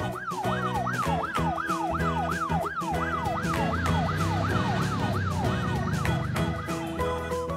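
Police car siren sounding a fast yelp, its pitch sweeping up and down about three times a second. It runs over children's background music and stops near the end.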